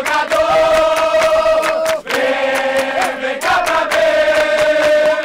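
A crowd singing a capoeira chorus in unison, in long held notes in phrases of about two seconds, over steady hand clapping and berimbau strikes.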